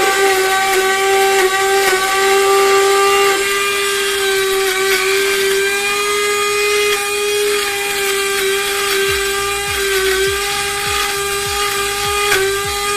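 Small electric mini grinder's motor running steadily with a loud high whine while grinding dry crackers into crumbs. The whine dips briefly near the end.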